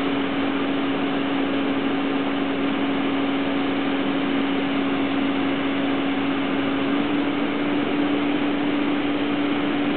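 Construction machinery running steadily: a constant hum with one unchanging mid-pitched tone over an even hiss.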